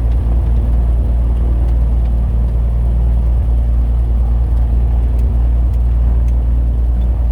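Cessna 182's single piston engine and propeller running steadily, heard from inside the cabin as a loud, even low drone.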